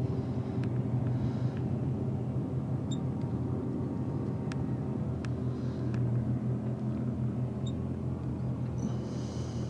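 Outboard motors on small boats running steadily under load, towing a grounded sailing yacht off the mud; a low, even engine drone.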